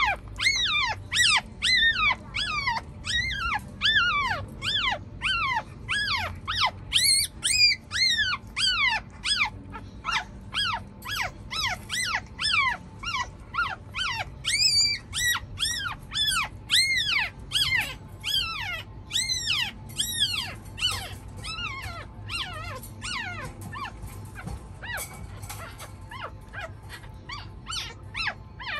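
Newborn Chihuahua puppy screaming in distress while its mother carries it in her mouth: a steady run of high, shrill cries, about two a second, each rising and then falling in pitch. The cries grow fainter near the end.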